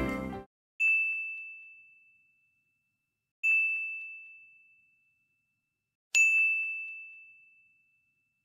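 A bright, bell-like ding sound effect struck three times, about two and a half seconds apart, each a single high tone ringing and fading over about a second, marking each black title card. A short tail of background music cuts off at the start.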